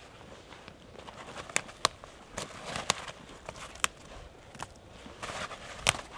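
Irregular sharp crunches and snaps in icy snow and brush, about seven over the few seconds, from someone moving about and handling frozen material.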